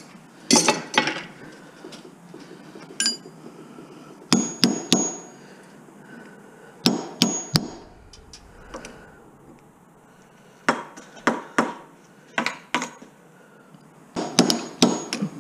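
Hammer blows on a metal punch, driving copper windings out of an electric motor's stator. The blows come as sharp, ringing metallic strikes in quick groups of two to four, with pauses of a second or more between the groups.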